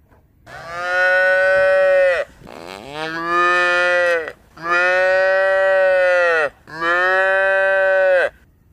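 A cow mooing: four long, loud moos in a row with short breaks between them, each rising in pitch at the start and sagging at the end.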